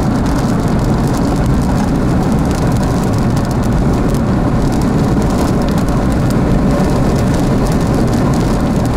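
Steady low rumble of road and wind noise from inside a moving vehicle, with no change through the stretch.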